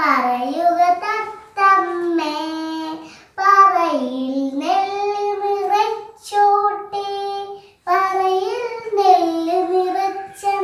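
A young girl singing a song without accompaniment, in short phrases with held notes and brief pauses between them.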